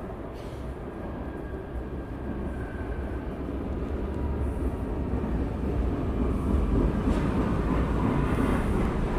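Vienna U-Bahn U3 metro train approaching and pulling into an underground station. Its low rumble grows steadily louder, with a faint high whine above it.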